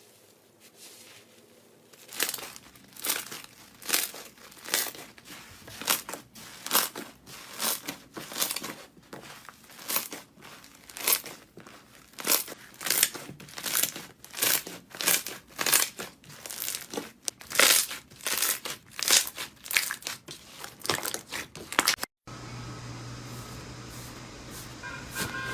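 Slime being squeezed and pressed by hand, crackling and popping in quick crunchy bursts about twice a second after a quiet first two seconds. Near the end it cuts suddenly to a steady low hum.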